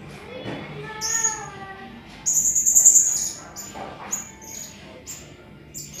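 Caged serindit (hanging parrot) calling with short, very high, sharp notes. A loud buzzy high trill lasting about a second comes roughly two seconds in and is the loudest call.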